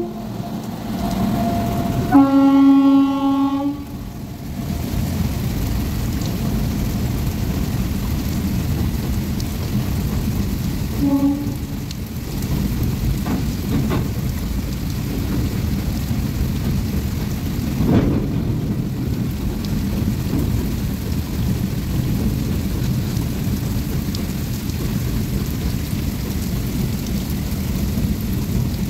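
Freight train passing in heavy rain: the electric locomotive's horn sounds a chord about two seconds in and gives a short blast around eleven seconds, then a long line of goods wagons rolls past with a steady rumble under the hiss of the downpour.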